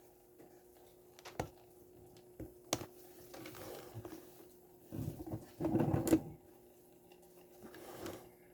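Handling noise close to the microphone: a couple of sharp clicks, then soft rustling and shuffling, louder a little past the middle, over a faint steady hum.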